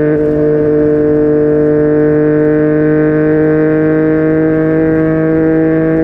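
Yamaha MT-09's inline three-cylinder engine through a Yoshimura R55 slip-on exhaust, pulling steadily in one gear with its pitch creeping slowly upward.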